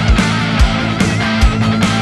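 Background rock music with a steady driving drum beat and guitar.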